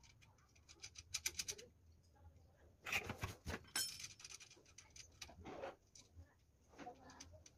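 Hands fitting small metal parts on a go-kart engine: light clicks, with a quick run of clicks about a second in, and scraping and handling noises a few seconds later.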